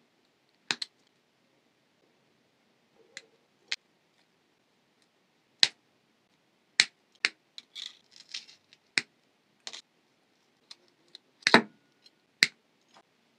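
Scattered sharp snips and clicks of side cutters and pliers working thin jewelry wire, about a dozen at irregular intervals, with a brief crackle of handling around the middle and the loudest snip near the end.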